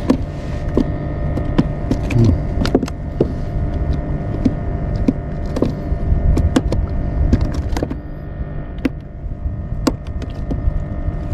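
Irregular light clicks and knocks over a steady low rumble and faint hum, from an angler handling a spinning rod and reel on a plastic fishing kayak.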